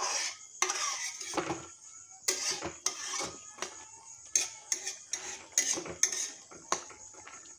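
Metal spatula scraping and clanking against a metal wok as pigeon pieces are stirred, in irregular strokes over a steady sizzle of the meat frying in oil.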